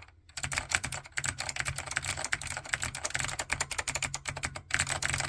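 Fast typing on an Ortek Mac-105 (SIIG Suntouch Mac) keyboard with clicky white Alps SKCM switches in an all-plastic case: a rapid, dense run of sharp clicks starting about half a second in.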